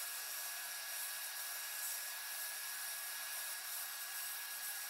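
Sandblasting gun in a blast cabinet: a steady hiss of compressed air and abrasive hitting a rusty sheet-steel toy part, stripping off rust and paint. A thin steady whine runs under the hiss.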